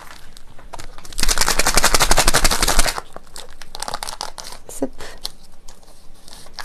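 A plastic instant-ramen seasoning sachet shaken hard for about two seconds, a fast loud crackling rattle, followed by softer crinkling as the sachet is torn open and the powder is poured out.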